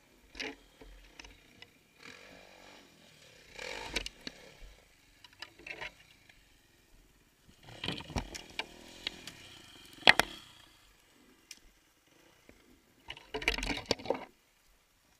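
Dirt bike engines revving in short bursts, a two-stroke-like buzz, with a sharp knock about ten seconds in that is the loudest sound.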